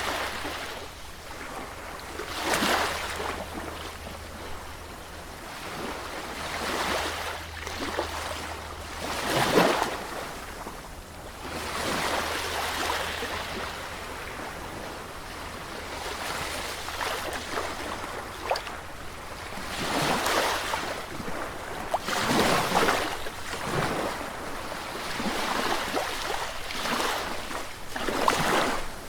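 Sea waves breaking on the shore and washing back, one surge every few seconds over a steady rush of surf, the loudest break about ten seconds in.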